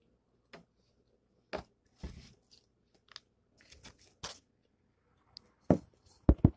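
Fried chicken being torn apart by hand and chewed: short, irregular crackles and crunches of the crispy coating about once a second. A few much louder knocks come near the end.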